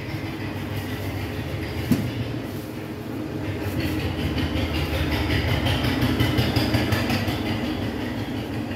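A steady low rumble that swells from about three seconds in and eases near the end, with one sharp click about two seconds in.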